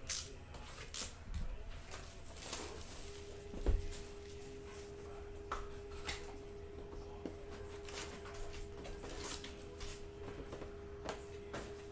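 Hands opening a cardboard 2020 Panini Prizm hobby box and pulling out its packs: scattered rustles, taps and clicks, with one louder thump just under four seconds in. A faint steady hum sets in about three seconds in.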